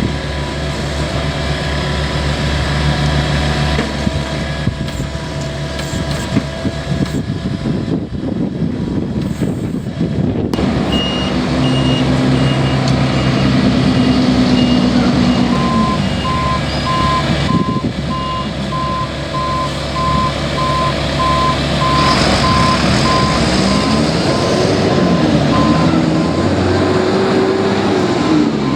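Heavy paving equipment running with a steady engine rumble while backup alarms beep: a higher-pitched reversing beeper starts about a third of the way in, and a lower-pitched one joins it and carries on to the end. Near the end an engine's pitch rises and falls.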